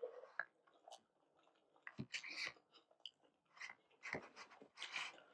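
Faint chewing and wet mouth sounds of someone eating dumplings in soup: scattered soft clicks and smacks, a little louder about two seconds in and again near the end.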